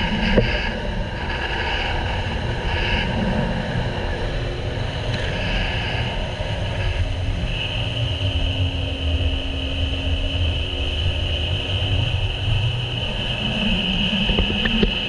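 Sea-Doo GTI jet ski running at speed, a steady engine whine over heavy, gusting wind rumble on the microphone and rushing water spray.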